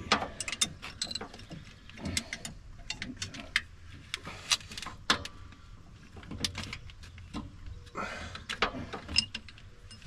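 Irregular sharp clicks and light metal clinks of an Allen key being worked on hex bolts.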